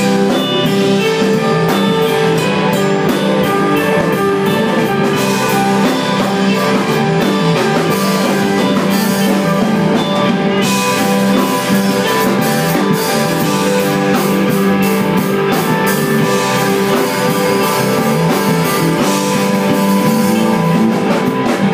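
Live rock band playing an instrumental passage with electric guitars, bass guitar and drum kit, loud and continuous.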